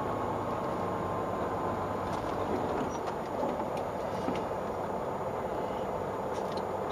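Steady engine and road noise inside the cab of a 2015 Mack CXU613 tractor-trailer rolling along a city street, with a faint whine that slowly drops in pitch during the first few seconds.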